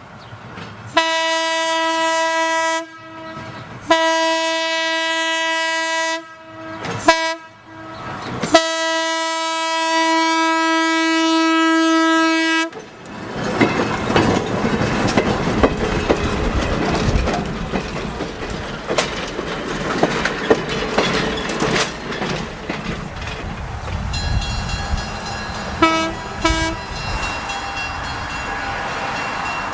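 Train air horn on one steady note sounding two long blasts, a short one and a final long one, the grade-crossing signal. The train then passes close by with loud wheel clatter and rumble, and there is one brief horn toot near the end.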